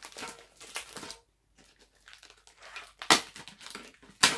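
Plastic shrink-wrap crinkling and rustling as aluminium drink cans are pulled out of a wrapped tray, with two sharp knocks about three and four seconds in.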